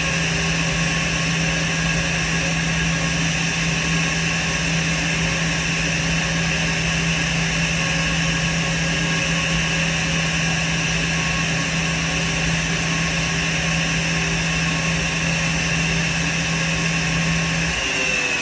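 Airbus A320's jet engines idling at the gate: a loud, steady whine and rush with a low hum under it. The engines are kept running because the APU is inoperative and ground power is not yet connected. Near the end the low hum cuts off and the whine starts to drop in pitch.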